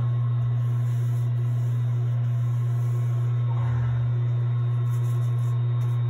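A steady low hum, with a brief low rumble a little past halfway.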